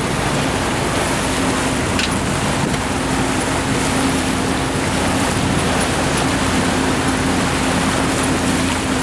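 Fishing boat's engine running with a steady drone, under a continuous rush of water and wind.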